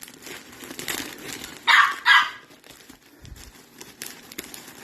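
A dog barks twice in quick succession, short and sharp, over light rustling and crinkling of packaging.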